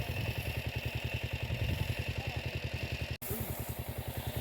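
Tractor engine running at a steady speed with an even chugging beat of about seven pulses a second, while it ploughs. The sound drops out for an instant a little after three seconds.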